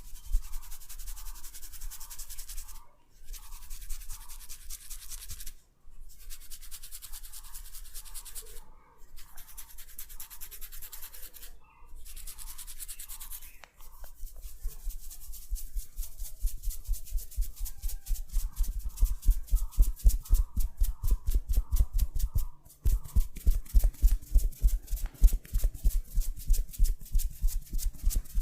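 Hands massaging an oiled scalp and hair: quick rhythmic rubbing and scrubbing strokes. The strokes come in runs of a few seconds with short pauses at first, then from about halfway they run on unbroken with heavier thuds.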